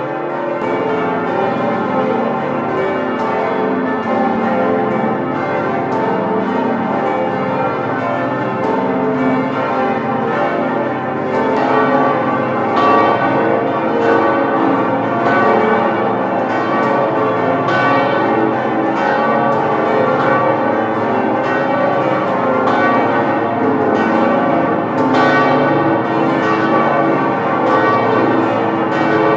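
Several church bells ringing together in a continuous peal of overlapping strikes. The sound grows fuller and a little louder about eleven seconds in.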